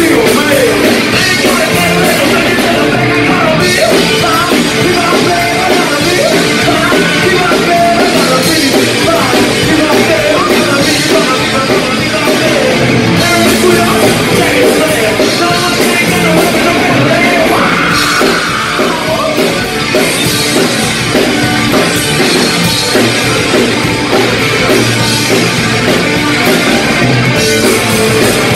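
Live punk rock band playing loudly: electric guitars and a drum kit, with a male singer on vocals.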